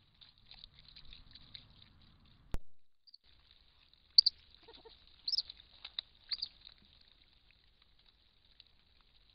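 Eurasian otters giving thin, high-pitched squeaks, with several short louder squeaks between about four and six and a half seconds in. There is soft rustling in the first two seconds and a single sharp click about two and a half seconds in.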